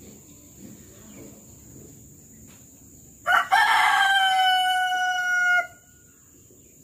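A rooster crowing once, about three seconds in: a short opening note, then one long held note of about two seconds that cuts off.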